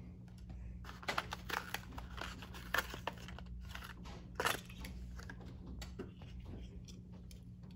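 Plastic blister packaging of a Hot Wheels die-cast car crinkling and crackling as it is pulled open, with scattered irregular clicks.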